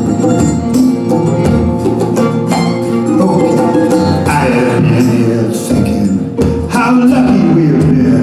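Live acoustic band playing an instrumental passage: strummed and picked acoustic guitars, mandolin and violin over steadily struck hand percussion.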